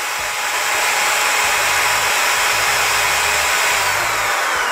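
Hand-held electric drill running steadily at full speed on power from an 800 W high-frequency inverter. Near the end its whine starts to fall as the motor winds down: the inverter has tripped into protection under the load.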